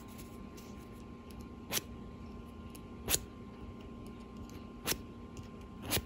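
Four short scrapes of a small metal file drawn across the cut ends of a fine-silver wire ring, each one brief and sharp and spaced about a second or more apart. The ends are being filed flush so they close without a gap for fusing.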